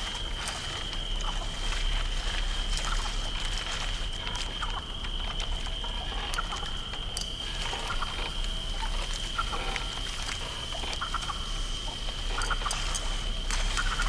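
Night swamp ambience: a steady high insect drone over a low rumble, with scattered short frog- or duck-like animal calls and a few clicks.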